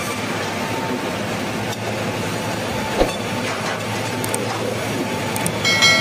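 Band sawmill machinery running steadily with a rattling clatter, a sharp knock about halfway through, and a brief ringing tone near the end.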